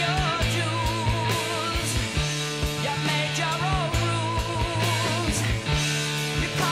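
Rock music: a lead melody with vibrato over held bass notes and a steady drum beat.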